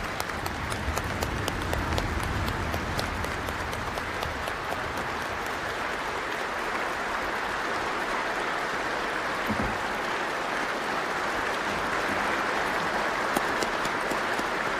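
A large assembly of people applauding together, a dense and steady ovation.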